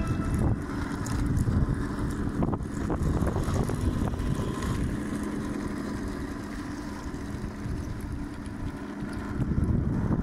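Heng Long Leopard 2A6 radio-controlled model tank driving over gravel: a steady hum from its electric drive and running gear, with scattered clicks from the tracks about two to three seconds in, and wind rumbling on the microphone.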